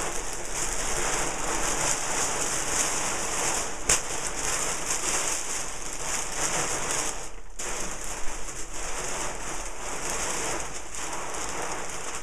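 Continuous crinkly rustling of parafoil kite fabric being handled and pulled through the rolled-up burrito roll, with a brief pause about seven and a half seconds in.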